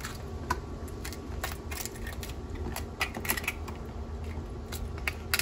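Knife tip scraping the gills ("lungs") out of a blue crab with its top shell off: a run of irregular small clicks and scratches of blade on shell.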